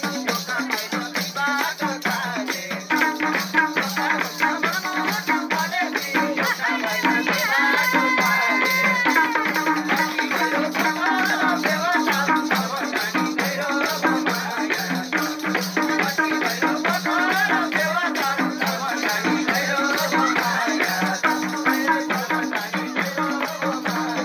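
Nepali folk song: a madal hand drum played in a fast, even rhythm under singing voices.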